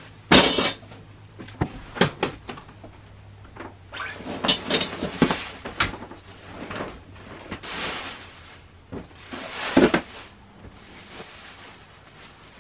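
Plastic bags rustling and clear plastic storage bins being handled, with several knocks and bumps as baby things are packed into them; the loudest bursts come just after the start and again about ten seconds in.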